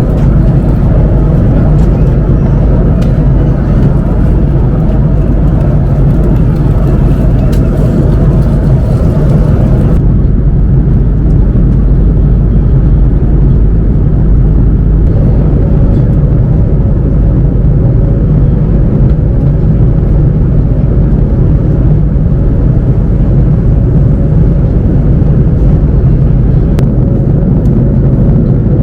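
Steady cabin noise of an Airbus A330-300 in cruise: a loud, even roar of airflow and engines. The higher hiss drops away suddenly about ten seconds in, and a faint steady hum joins around halfway.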